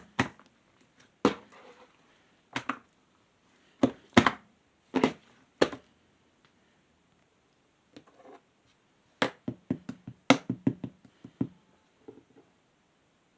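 Clear slime being pressed and squeezed by hand, giving sharp wet pops and clicks, singly and in quick clusters, with a pause of about two seconds in the middle.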